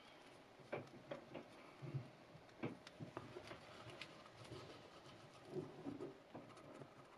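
Faint, irregular ticks and scrapes of a cotton swab dabbing and rubbing paste onto the plastic teeth of a dental model held in gloved hands. About a dozen small clicks are scattered among the rubbing.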